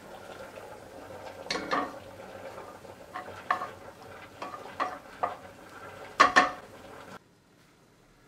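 A wooden spoon stirs and scrapes diced cured pork in a nonstick frying pan, knocking against the pan several times, loudest about six seconds in. Under it is a steady sizzle of the frying fat, which cuts off suddenly near the end.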